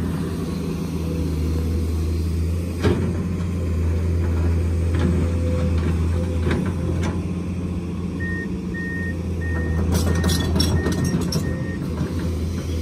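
Komatsu PC210 excavator's diesel engine running steadily while its bucket digs into dry dirt, with scattered knocks and scrapes of the bucket on soil and stones. About eight seconds in, a reversing alarm beeps briefly, about two beeps a second for some three and a half seconds.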